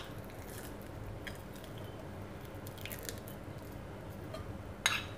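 Crumbly khoya being scraped out of a glass bowl and dropping into a nonstick frying pan: faint soft squishing and crumbling with scattered small ticks, and a sharper clatter of taps near the end.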